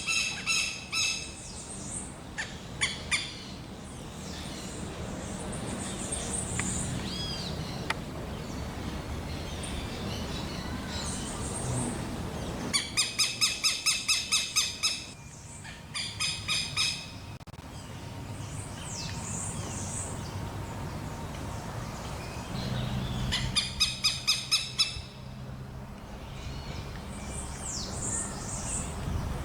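Southern lapwing (quero-quero) calling in several rapid runs of loud, harsh, repeated notes, about four to five a second. Fainter high chirps from other birds sound in the gaps.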